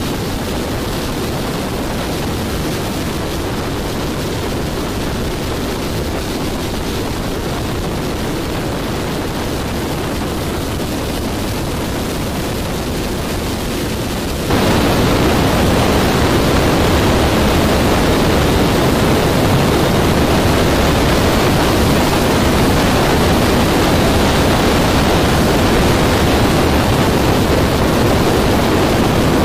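Steady rushing noise of a small boat moving on the river, water wash and wind on the microphone, with no clear engine note; it steps up suddenly and stays louder about halfway through.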